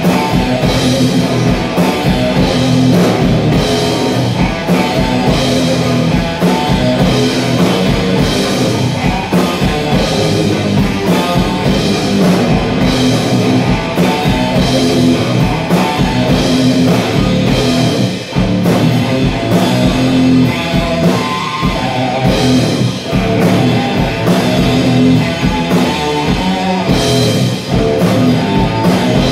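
Instrumental heavy rock played live by a guitar-and-drums duo: an electric guitar plays a riff over a drum kit keeping a steady beat, with no vocals.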